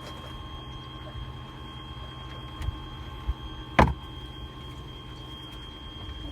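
Torqeedo electric outboard motor running, a steady whine over a low rumble. A single sharp knock a little past halfway, with two fainter thumps just before it.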